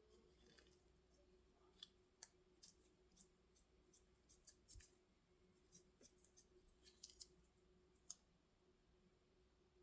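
Faint, irregular sharp clicks and snips of small hand tools working on an FPV battery's power cable, about a dozen spread through, the loudest a little after two seconds in.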